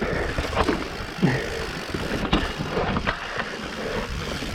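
Mountain bike rolling fast down a rough trail: tyres rumbling over dirt and rock, with rattles and knocks from the bike and wind buffeting the microphone.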